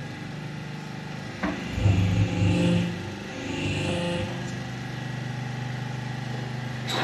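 Industrial sheet-metal forming machine running with a steady low hum. There is a knock about one and a half seconds in, and two louder spells of machine motion around two and four seconds in as the sheet is worked onto the mandrel.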